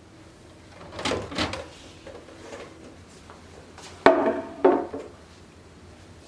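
Household objects being handled, with two clusters of knocks and scrapes: a pair about a second in, and a sharper knock followed by a scrape about four seconds in, like a drawer or container being moved.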